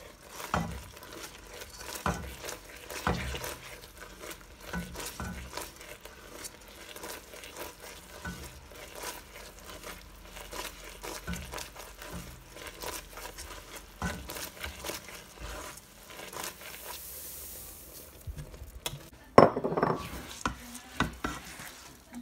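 Silicone spatula stirring and scraping melted sugar and butter syrup in a non-stick pot, with a light sizzle and many small irregular scrapes and taps. Near the end comes a sudden loud burst, the sesame seeds going into the hot syrup, followed by stirring through the seeds.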